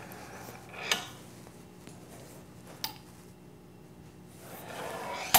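Sheet-metal brake worked by hand to bend a hem: the bending leaf and its steel handle swung up, with three sharp metallic clicks, the loudest near the end.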